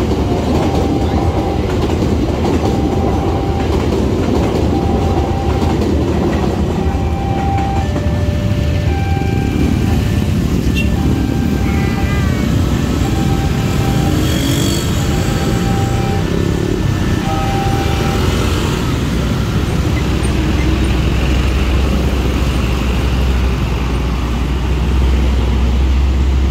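Passenger train carriages running past over a railway level crossing. The crossing's warning signal sounds in short repeated tones about every second and a half, stopping about 18 seconds in. From about 20 seconds a truck's engine runs close by with a deep, growing drone.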